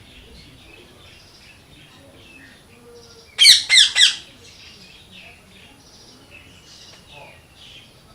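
A parrot giving three loud, harsh squawks in quick succession about three and a half seconds in, over a steady background of many small bird chirps.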